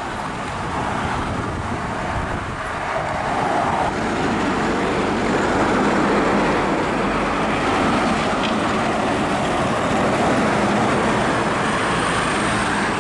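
Highway traffic passing close by: loaded diesel semi-trucks and cars going past, engine and tyre noise growing louder over the first few seconds and then holding steady.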